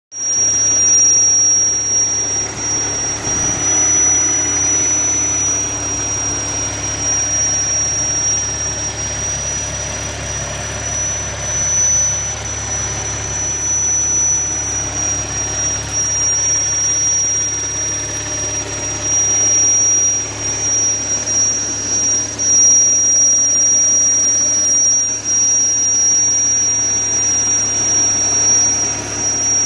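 2013 Audi S4's supercharged 3.0-litre V6 running steadily with a thin, steady high-pitched whistle over the engine hum, which the owner suspects is a vacuum leak; it appeared after the supercharger was ported.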